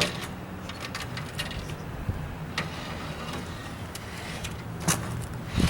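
A vehicle engine idling steadily, with a few sharp clicks over it, the loudest near the end.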